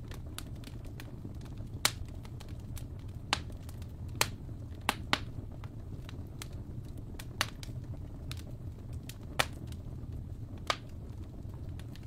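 Wood fire crackling in a fireplace: a steady low rumble with sharp pops at irregular intervals, the loudest about two seconds in and again near nine and a half seconds.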